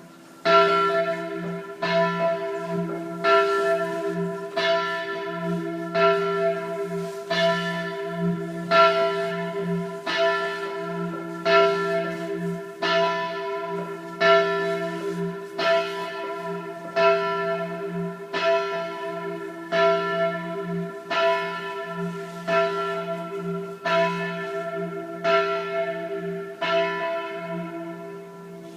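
Church bells ringing loudly in steady, evenly spaced strokes, their hum sustaining between strikes. The ringing starts about half a second in and dies away near the end.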